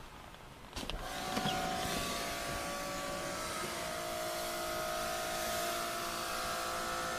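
A motor's steady hum with several held tones over a soft hiss, starting about a second in.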